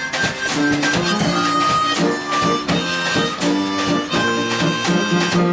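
Live blues played on harmonica over a drum kit: held and sliding harmonica notes over a steady beat on snare and cymbals.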